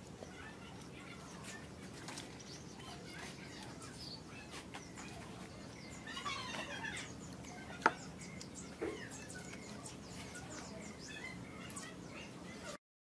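Faint background ambience with scattered short chirps, rustles and clicks, and one sharp click a little past halfway. The sound cuts off abruptly near the end.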